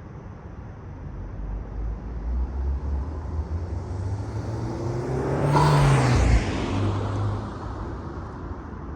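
Honda Civic Type R FL5's turbocharged 2.0-litre four-cylinder with a K&N drop-in air filter, pulling under acceleration. Its note climbs steadily in pitch for several seconds and is loudest about six seconds in, then drops off abruptly and settles back.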